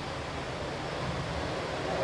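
Steady outdoor background noise: an even hiss over a low rumble, like wind and distant city traffic.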